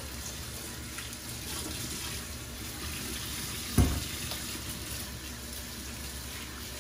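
Kitchen faucet running steadily into a metal sink. A single dull thump sounds just past halfway.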